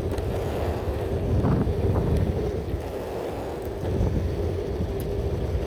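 Meepo V4 electric skateboard rolling in a left turn, a steady wheel and road rumble with wind on the microphone and a few faint rattles. The rattles come from loose plastic, which the rider thinks is too loose on the board.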